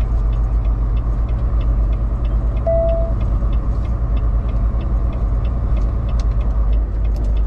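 Steady low engine and road rumble heard inside a semi-truck cab as the rig descends a winding mountain grade at low speed. A short beep sounds about three seconds in.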